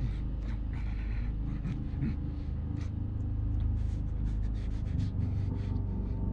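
Dark film soundtrack ambience: a steady low rumble with many short clicks and crackles scattered over it.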